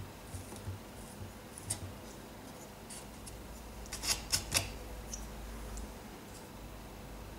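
Small hand tools working on a model bridge: faint scratching and light ticks, with a quick run of three sharper clicks about four seconds in. A low steady hum sits underneath.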